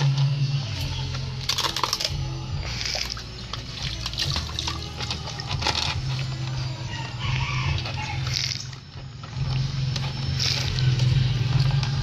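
Water splashing and sloshing in a plastic basin and wet, soapy fur being scrubbed by hand as a puppy is bathed, in short bursts every second or two, over background music with a steady low bass.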